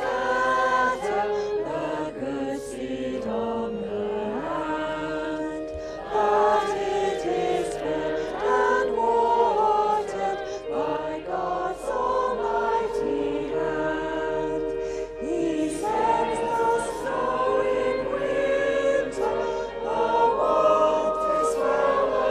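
A congregation singing a hymn together, a mass of voices holding each note and moving from note to note at a steady pace.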